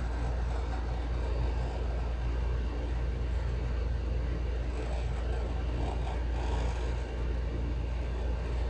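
Steady low rumble with an even hiss of background noise.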